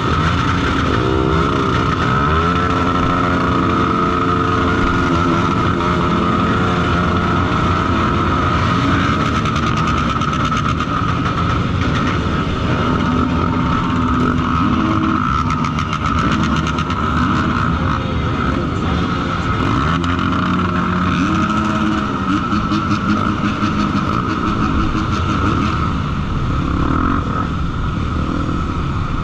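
Honda XR250 Tornado trail motorcycle's single-cylinder four-stroke engine running under way, its pitch rising and falling as the throttle opens and closes.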